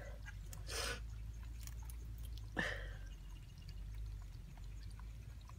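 Rustling and a sharp click as hands handle and tie up a woven bamboo fish trap, over a low steady rumble.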